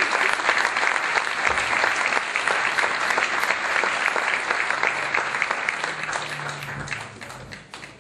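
A large audience applauding, a dense, even clapping that dies away over the last two or three seconds.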